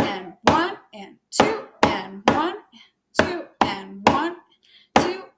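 Drumsticks striking a drum in a steady 2/4 rhythm, hits a little under half a second apart with regular gaps where eighth rests fall. Each hit rings briefly.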